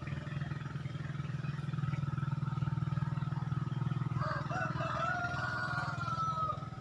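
A steady low droning hum, and over the second half a long drawn-out higher call that slowly falls in pitch before stopping.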